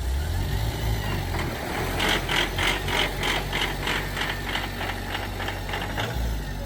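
A vehicle engine running with a low rumble. From about two seconds in, an even rhythmic rattle of roughly three strokes a second runs over it for about four seconds, then stops.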